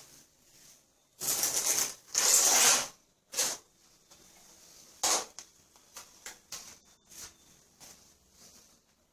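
Repair work on a bathtub floor: two long scraping strokes, then a scattered run of short knocks and scrapes.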